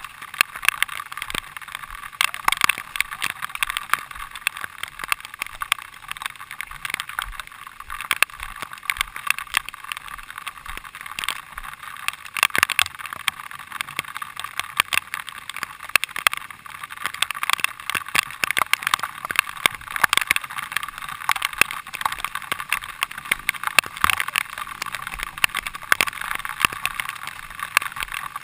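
Bicycle rattling and clattering as it rides over a rough, muddy trail: a steady jumble of sharp knocks and clicks with a hiss of noise underneath.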